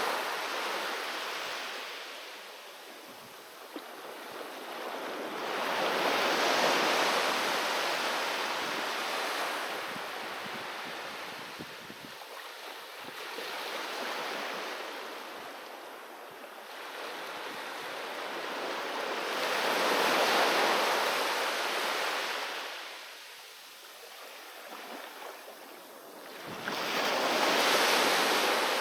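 Sea waves breaking on a beach, each one swelling up and washing back, about every seven seconds; the last wave near the end comes in suddenly.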